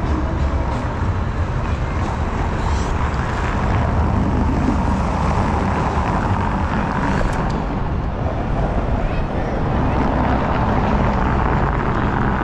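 City street traffic noise: cars driving over a brick-paved street, heard as a steady, heavy low rumble with no distinct single events.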